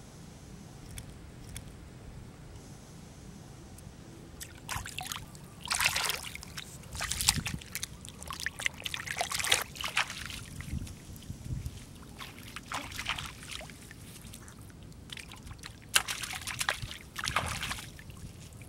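Shallow pool water splashing and sloshing as a small carcass is rinsed and swished by hand, in irregular bursts that begin a few seconds in.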